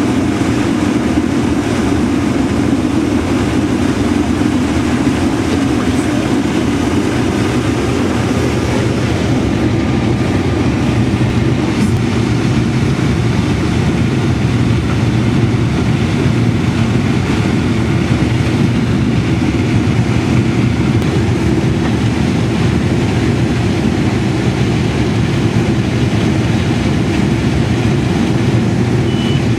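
Case IH combine running steadily while harvesting corn: a continuous deep mechanical drone of engine and threshing machinery that does not let up.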